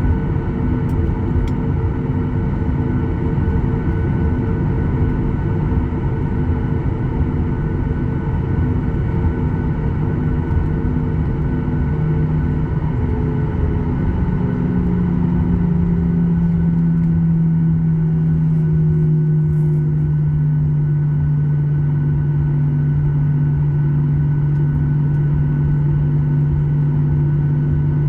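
Boeing 737-800 in flight, its CFM56-7B engines running with a steady rumble and humming tones. About halfway through, a strong low hum comes in and slowly sinks in pitch.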